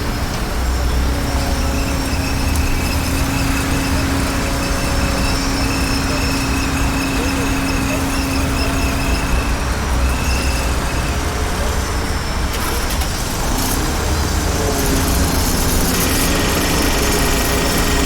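Construction site ambience: heavy machinery engines running continuously with a low rumble and a steady engine drone that shifts in pitch about halfway through.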